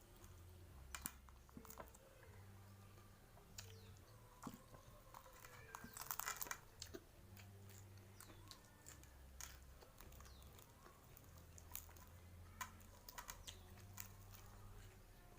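Quiet eating sounds close to the microphone: chewing and mouth clicks while eating fried mujair (Mozambique tilapia) with raw papaya leaves, with a short crunchy burst about six seconds in.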